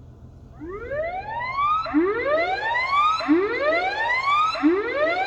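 Tsunami warning siren sounding the standard emergency warning signal during a network test: a loud rising whoop that sweeps up in pitch and starts over about every second and a third, beginning about half a second in.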